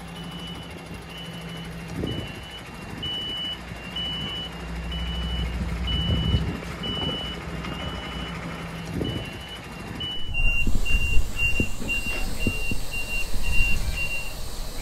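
Forklift's warning beeper sounding a steady run of short high beeps, about two a second, over a low hum. About ten seconds in the beeps turn shorter and quicker, with knocks and rumble from the working forklift.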